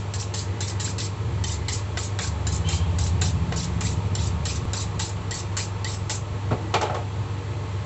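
Quick, regular knife strokes chopping through chicken on a cutting board, about four a second, stopping about six seconds in, over a steady low machine hum. A single louder knock comes just before seven seconds.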